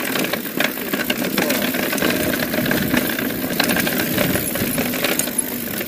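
Mountain bike riding fast down a dirt singletrack, heard close up on the bike: tyres on dirt with a continuous rattle and many small knocks over the bumps.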